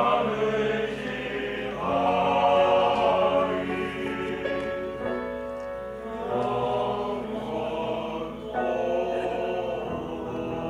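Male vocal ensemble singing a Korean gospel song in harmony, holding long chords phrase by phrase.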